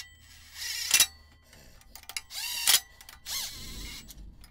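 Cordless impact wrench spinning flexplate-to-crankshaft bolts in on a small-block Ford, run in three short bursts with the motor speeding up and slowing down. The bolts are only run down, not torqued to spec.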